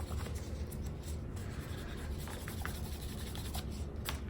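Faint, light scratching and rubbing of fine-grit sandpaper worked over the plane's wooden handle finish, with a steady low hum under it.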